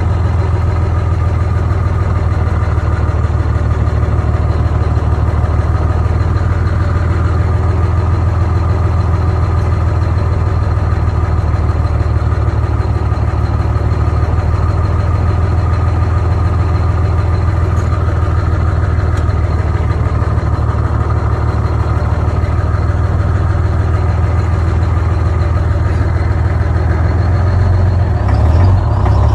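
A 1959 Walter truck's Detroit Diesel 6-71, a two-stroke inline-six diesel, running steadily with a deep drone while driving, heard from inside the cab through a phone in a shirt pocket. The engine gets a little louder near the end.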